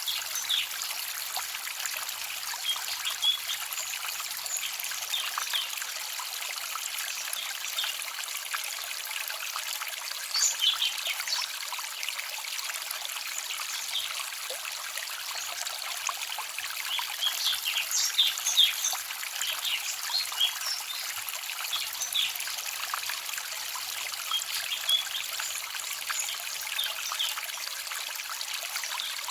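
Small forest stream trickling and babbling over stones: a steady water hiss with frequent brief splashy gurgles that come and go.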